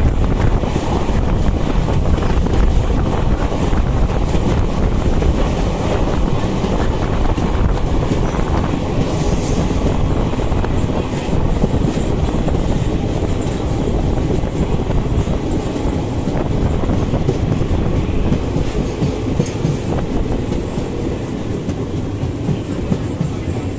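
Express passenger train running at speed, heard from on board: a steady rumble of wheels on rail, with short clicks as the wheels pass over rail joints.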